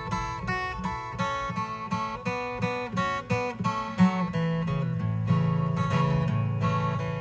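Acoustic guitar playing a country song's instrumental intro: a run of single picked notes, about four a second, then fuller strummed chords over low held notes from about four seconds in.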